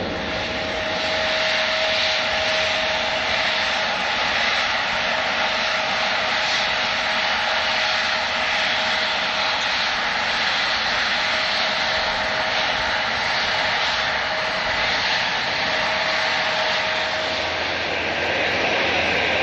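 Airliner engines running steadily: a broad rushing noise with a steady whine that stops near the end.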